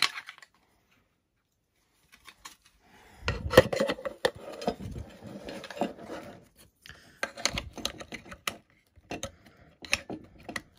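Handling noises as a metal landing-gear strut is held and pressed against a model plane's fuselage while being lined up. After about two seconds of near silence come irregular clicks, knocks and rubbing.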